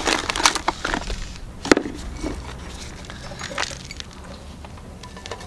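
A small metal hand trowel working potting soil in a flowerpot: crunchy scrapes and clicks, the sharpest nearly two seconds in, then fainter scattered ticks.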